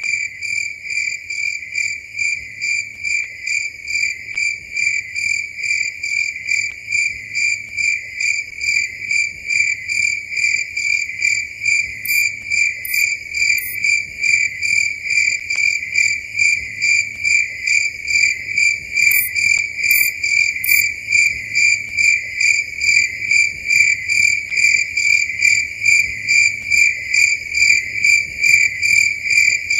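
Crickets chirping at night: a steady, evenly pulsing high-pitched trill that grows slightly louder over the stretch.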